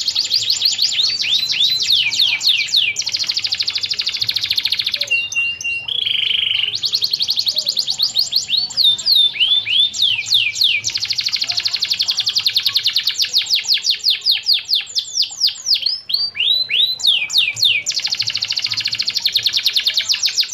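Domestic canary singing a long, continuous song of fast rolling trills and rapid downward-sweeping notes, broken about five seconds in by a short run of steady whistled notes before the trills resume.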